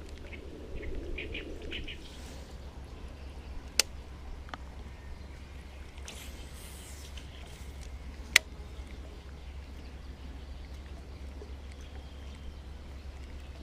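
Birds chirping a few times in the first two seconds over a steady low hum, with two sharp clicks, about four and eight seconds in.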